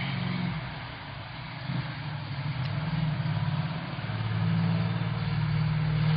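A motor vehicle's engine running in the street, a steady low hum that grows a little louder about four seconds in.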